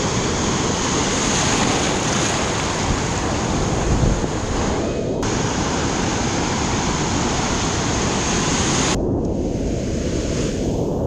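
Ocean surf rushing and breaking around the wading camera, with wind on the microphone. There is a low thump about four seconds in, and the higher part of the sound cuts out briefly about five seconds in and again near the end.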